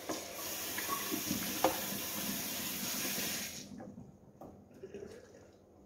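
Kitchen sink tap running steadily over hands being rinsed, shut off suddenly a little under four seconds in; a few faint clicks and handling sounds follow.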